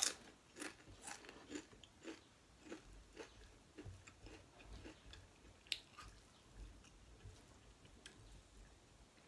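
Close-up chewing of a mouthful of pork curry and rice: a run of small wet mouth clicks and smacks, about two a second at first and sparser later, with one sharper click a little past the middle.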